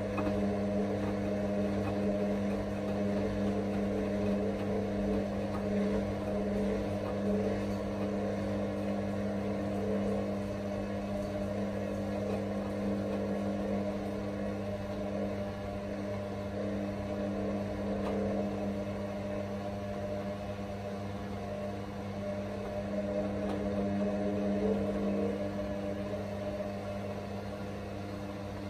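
Hotpoint WM63P front-loading washing machine spinning a load of towels: a steady motor hum and whine, with a higher tone that wavers slightly in pitch.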